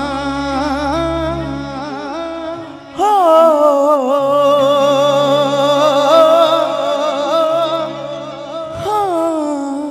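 A male vocalist sings long held notes with wavering pitch, live through a microphone, over steady sustained backing chords. One held line fades out, and then about three seconds in a loud drawn-out 'ho' begins and is held until a falling slide near the end.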